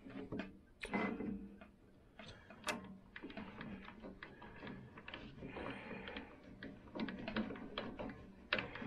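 Irregular small metal clicks and light rattling from the hand cranks of a mini lathe's compound and cross slides being turned by hand, inching the slides and tool post.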